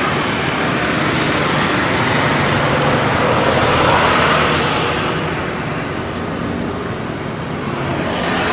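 Steady rushing noise of road traffic, swelling about four seconds in as a vehicle passes and then easing off.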